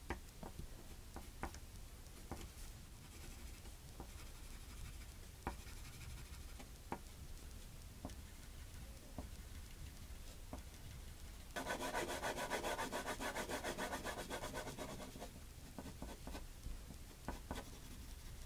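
Pencil strokes on paper: scattered light strokes and taps, then a little past the middle a run of fast back-and-forth shading strokes lasting about three and a half seconds, the loudest part, before lighter strokes return.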